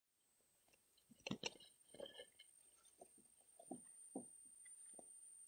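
A paperback zine being handled and opened: a few faint knocks and soft rustles of its cover and pages, the sharpest pair about a second and a half in.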